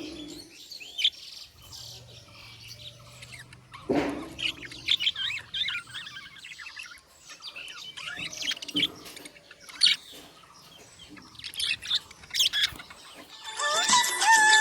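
Budgerigars chirping: short, quick high-pitched calls in irregular bouts, with a sharper, louder call about four seconds in.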